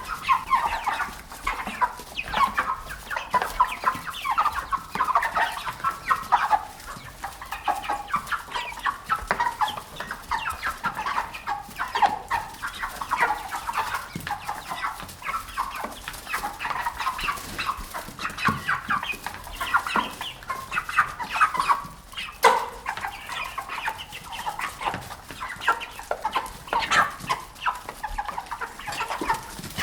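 A flock of chickens clucking continuously, many hens calling over one another. A single sharp click comes about two-thirds of the way through.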